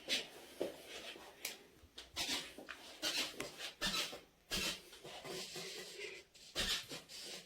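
Hands rubbing and rustling against clothing and skin during manual back treatment, in short irregular strokes.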